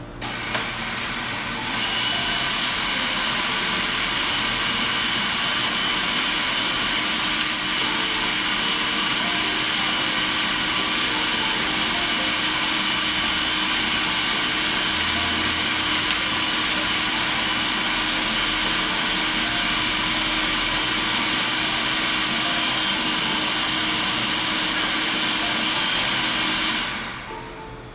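Electric food processor motor running, blending a ricotta and garlic pâté mixture: it starts just after the beginning, settles into a steady whine within a couple of seconds, and winds down near the end. Two brief sharp clicks are heard partway through.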